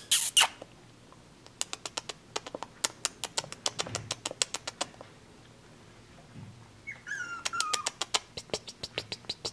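Four-week-old schnauzer puppies moving about on a hard floor: quick irregular runs of light clicks from their claws, and a short high puppy whine that falls in pitch about seven seconds in.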